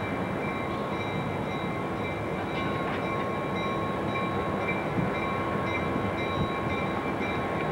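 EMD F7 diesel locomotive's 16-cylinder two-stroke engine running steadily, a constant rumble with a faint steady whine above it.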